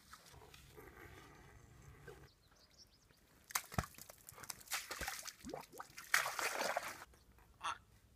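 Feet wading through wet mud and muddy water: a run of irregular sloshing, squelching splashes beginning about three and a half seconds in and loudest near the end, with a last short splash just before the close.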